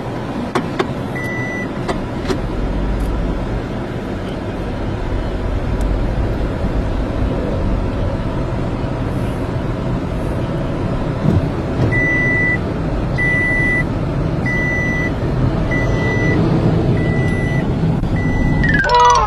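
Steady engine and road noise of a car driving along. In the second half, a short electronic beep repeats about every second and a quarter, six times, with a single beep near the start. A quick falling tone sweeps down at the very end.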